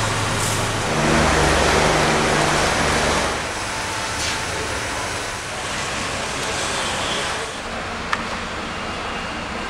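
Fire-engine motors running with a steady rushing noise and a low engine hum. The noise swells about a second in and eases after about three seconds. A single sharp click comes near the end.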